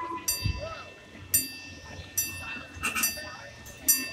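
Railroad grade-crossing bell ringing as the crossing gates go down, about one struck ring a second, each ring hanging on between strikes.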